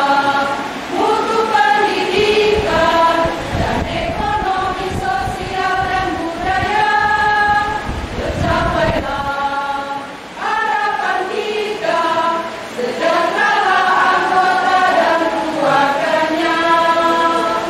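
Women's choir singing in several parts, sustained phrases with a short break about ten seconds in.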